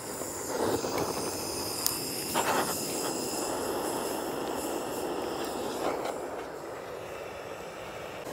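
Handheld butane gas torch hissing steadily as its flame is held to kindling, swelling louder a few times, with a sharp click about two seconds in.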